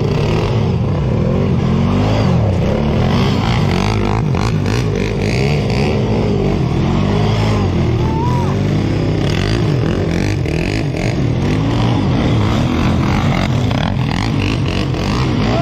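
Off-road vehicle engine revving up and dropping back over and over, its pitch rising and falling every second or so.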